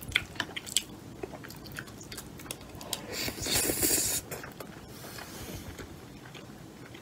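Close-miked mouth sounds of a person eating rice mixed with soy-marinated crab: wet chewing and small clicks of the spoon and lips, with a breathy slurp from the spoon about three seconds in.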